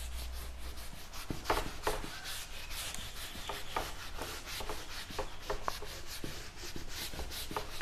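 Whiteboard eraser rubbing marker ink off a whiteboard in repeated quick wiping strokes.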